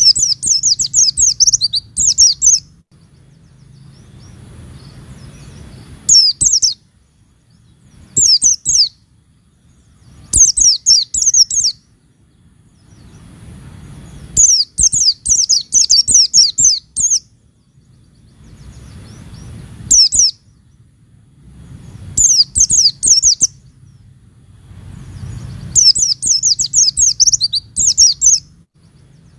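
White-eye (pleci) singing in about eight quick bursts of rapid, high, descending twittering notes, with short pauses between bursts and a low hum underneath.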